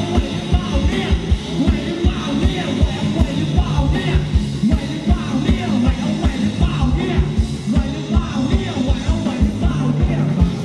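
Ramwong dance band playing loud, with a fast, steady drum beat and a singing voice over it.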